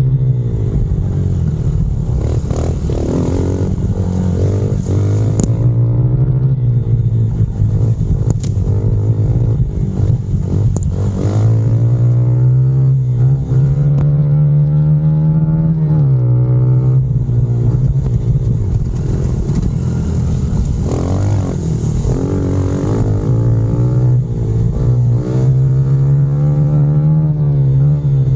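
Honda CRF110F pit bike's small air-cooled four-stroke single-cylinder engine running hard under the rider, its note rising and falling as the throttle is opened and closed.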